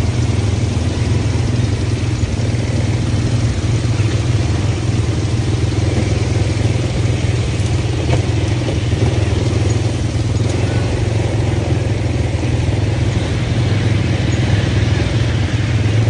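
ATV (quad bike) engine running steadily at low trail speed, a constant low-pitched drone.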